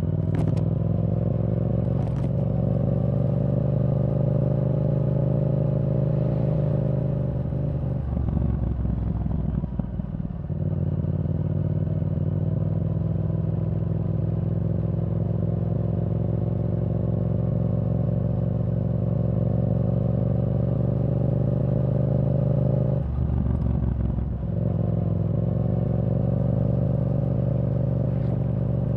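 Yamaha R7's 689 cc parallel-twin engine running through a Yoshimura R77 exhaust with the dB killer removed, heard from the rider's seat while riding. The engine note holds steady and climbs gently, and is broken twice by short dips, about a third of the way in and again near the end.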